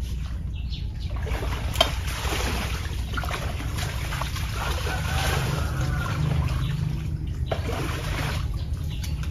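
Water trickling and splashing over a steady low hum, with one sharp click about two seconds in.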